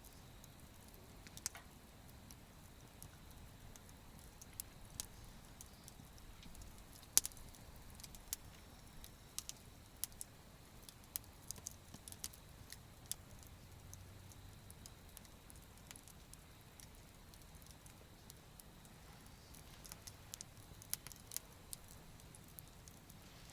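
Wood campfire crackling faintly, with irregular sharp pops of burning wood; the loudest pop comes about seven seconds in.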